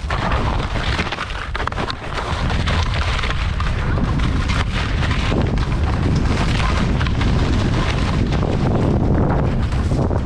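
Wind buffeting a head-mounted action camera's microphone as the skier picks up speed, with skis scraping and chattering over hard, crusty snow. It gets louder about two seconds in and then holds steady.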